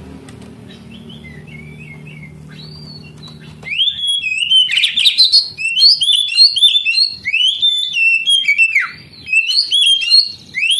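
Songbird singing: faint scattered chirps over a low steady hum, then from a little under four seconds in, loud, rapid, varied whistled phrases with rising and falling slurs, broken by short pauses.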